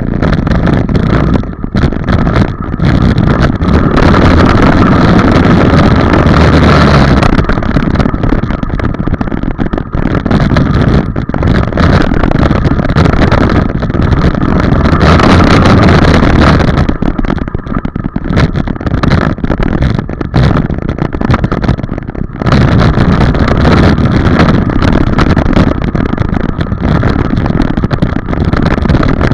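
Dirt bike engine heard from on the bike, running loud and repeatedly revving up and easing off as the rider works the throttle along the track.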